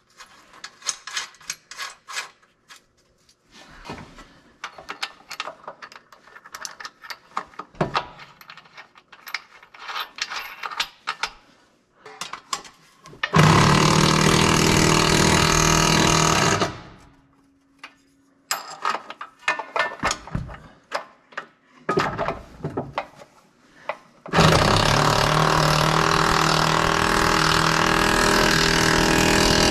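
Ratcheting box-end wrench clicking rapidly as nuts are run up the vise's mounting bolts under a steel bench. The ratcheting comes in two long spells, the second starting about two-thirds of the way in. Before and between them are scattered metal clicks and taps as the nuts are started by hand.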